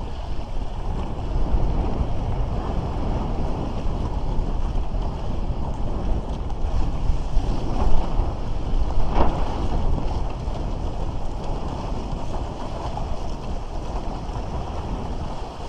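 Wind noise on the microphone over the rush and splash of water along a Bic Bamba raceboard as it sails through chop, with a brief louder splash about nine seconds in.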